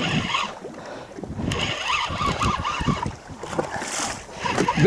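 Wind on the microphone and water against a boat's hull, with scattered short knocks and thumps.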